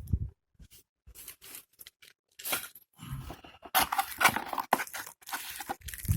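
Product packaging being opened and handled: irregular rustling, crinkling and tearing sounds with small knocks, busiest and loudest around four seconds in.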